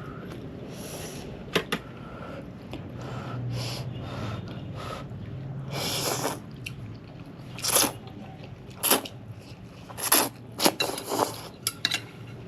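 Close-miked eating: chewing with wet mouth noises and sharp clicks and smacks, more of them in the second half.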